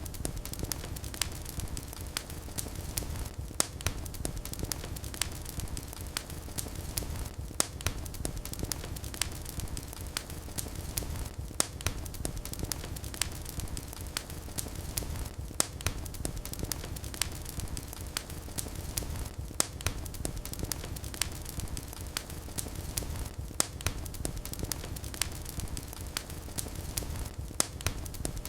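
Fire in a fireplace crackling: irregular sharp pops and snaps, a few a second, over a steady low rumble of the flames.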